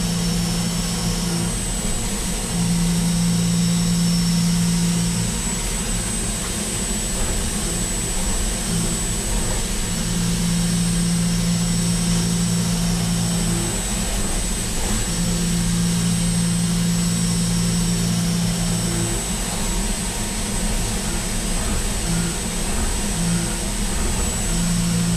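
CNC mill cutting Hastelloy X superalloy with a six-flute end mill under flood coolant: steady machine and coolant-spray noise with a constant high whine. A low hum swells in for stretches of a few seconds and drops out in between.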